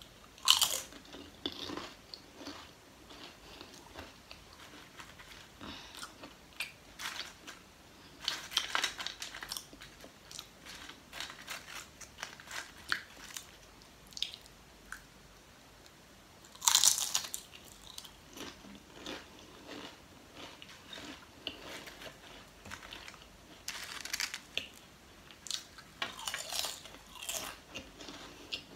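Lay's potato chips being bitten and chewed: a handful of loud crisp crunches as new bites are taken, with softer crackly chewing in between.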